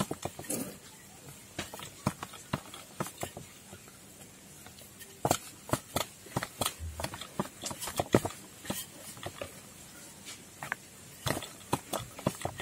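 Wooden rolling pin rolling out maida dough on a round wooden board, with many light, irregular clicks and knocks of the pin against the board.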